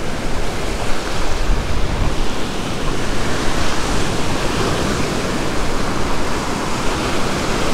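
Ocean surf washing in over the sand in the shallows: a steady rush of breaking waves and foam.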